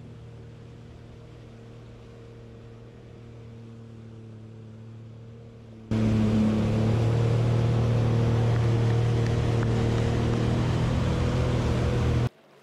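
Jet ski engine running at speed with a steady hum, faint at first. About six seconds in it becomes much louder and close, with the rush of churning water and spray, then cuts off suddenly near the end.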